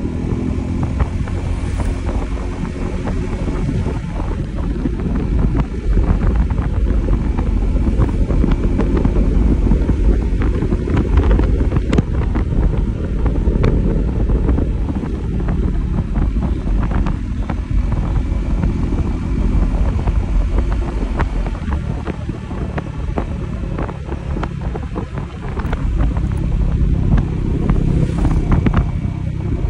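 Wind buffeting the microphone of a motor scooter at road speed, a steady low rumble with the engine running underneath.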